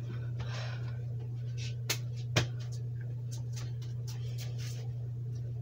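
Two sharp knocks about half a second apart, roughly two seconds in, then a few fainter clicks, over a steady low hum.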